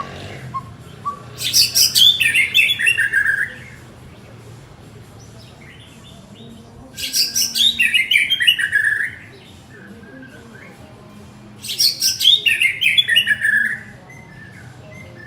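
White-rumped shama singing: three loud phrases about four to five seconds apart, each a rapid burst of high notes that falls in steps into lower whistles.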